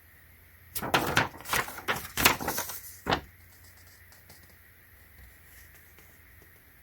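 Packaging being handled and rustled: a run of noisy rustling bursts for about two and a half seconds, then only faint small handling clicks.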